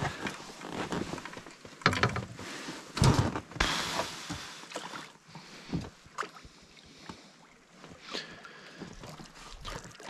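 Wooden oars working a small inflatable fishing raft: a handful of irregular knocks of the oars in their oarlocks and splashes of the blades in the water.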